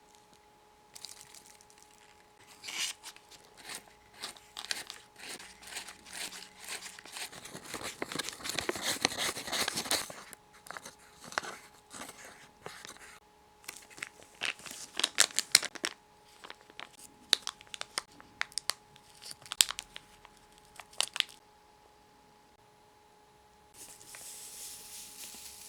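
Plastic packaging and powder packets of a Popin' Cookin' DIY candy kit being handled: crinkling and rustling, a longer tearing sound about eight to ten seconds in, then scattered sharp clicks and taps.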